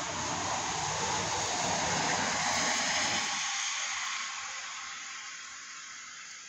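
A vehicle passing on the wet street, its tyres hissing on the water; the noise swells to a peak about two to three seconds in, then fades away.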